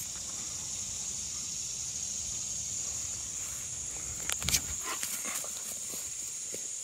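Outdoor ambience with a steady high hiss throughout, broken by a short cluster of thumps and rustles about four and a half seconds in, followed by a few fainter clicks, as a stick is thrown and dogs run off across grass.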